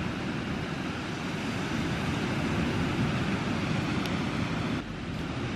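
Steady outdoor background noise, an even low rumbling hiss with no distinct events, dipping briefly near the end.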